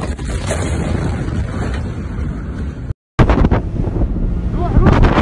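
Blast of a massive port explosion hitting a phone microphone: a sharp thump at the start, then loud rumbling and wind buffeting. About three seconds in the sound cuts out briefly, and a second recording from a boat follows, full of wind buffeting and low rumble.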